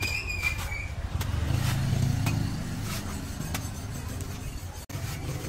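A vehicle engine rumbling past, swelling about a second or two in, with a few sharp knocks of a cleaver chopping into a young green coconut's husk.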